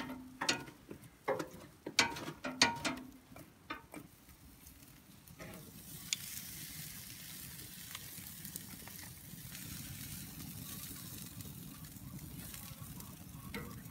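Metal tongs clicking and clinking against a steel mesh grill grate for the first few seconds, then a steady sizzle as a kudu fillet cooks over wood coals.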